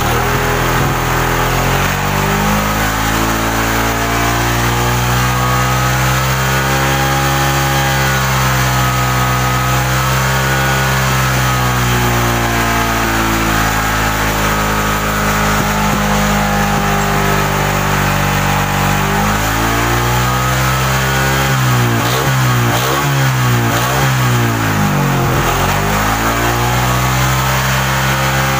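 Suzuki Shogun 125's single-cylinder four-stroke engine running at raised revs to warm up, its speed slowly drifting up and down, with a few quick throttle blips a little past two thirds of the way through before it settles again. The engine is warm and still running; it has a fault that makes it cut out when hot, which the mechanic puts down to a weak pulser.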